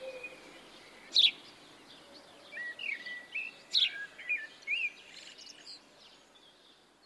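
Birdsong: short whistled notes that slide up and down, mixed with a few sharp chirps, coming in scattered bursts. It fades out near the end.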